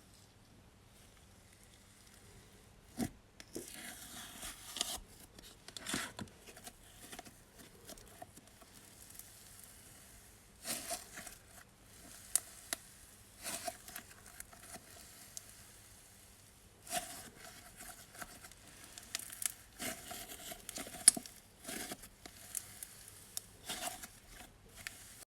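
Slime being handled, pressed and stretched, giving off sizzling crackles and sharp pops in irregular bursts, with quieter pauses between handfuls.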